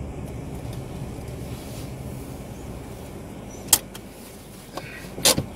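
Car engine running low inside the cabin as the car rolls into a parking space and stops, its rumble dropping away about four seconds in. Two sharp clicks inside the car, one just before the rumble drops and one near the end.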